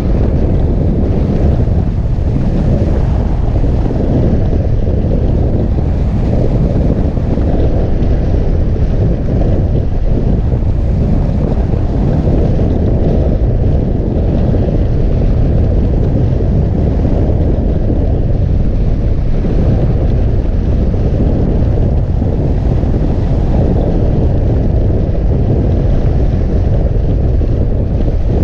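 Steady, loud wind rush from the airflow buffeting the microphone of a camera mounted on a hang glider in flight, mostly a low rumble.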